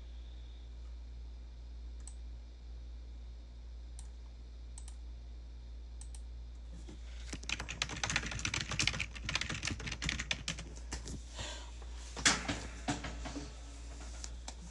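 Computer keyboard typing: a few faint single clicks at first, then rapid flurries of keystrokes from about seven seconds in until shortly before the end, over a steady low hum.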